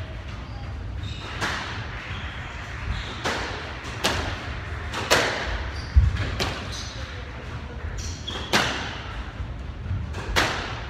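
Squash rally: sharp cracks of the ball off rackets and the court walls, about one a second, ringing in the hall, with a heavy low thud about six seconds in.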